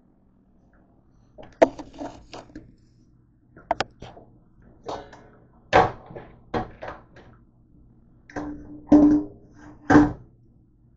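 Clatter and knocks of kitchenware being handled, ending with a stainless steel mixing bowl set down upside down in a plastic dish rack. The two loudest knocks come near the end, and a short metallic ring sounds between them.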